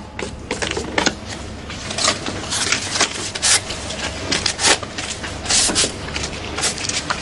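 Paper banknotes rustling and crinkling as they are handed across a counter and counted: a string of short, irregular crackles.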